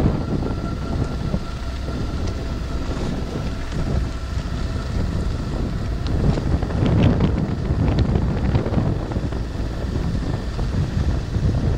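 Wind buffeting the microphone over the low rumble of a car driving along, heard from inside the moving car, with a few short rattles and a swell in the rumble partway through.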